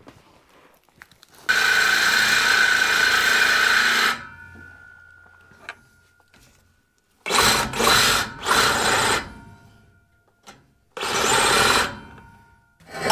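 DeWalt cordless power tool running in four runs: a long one of about two and a half seconds, then shorter ones with pauses between. It is spinning loose the fasteners that hold up a truck's fuel tank.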